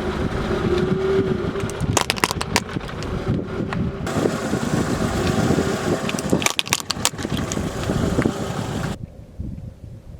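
Car engine running as the tyres roll over toys and crush them, with three clusters of sharp cracking and crunching. The sound drops off abruptly near the end.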